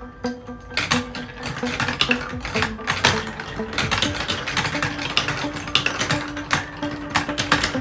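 Marbles clicking and clattering rapidly down a plastic building-block marble run, starting about a second in, over background music.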